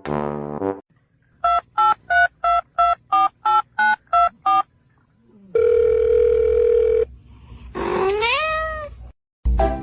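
A string of nine short electronic beeps, about three a second, over a thin high steady tone, then one long lower beep, then a single rising-and-falling animal cry near the end.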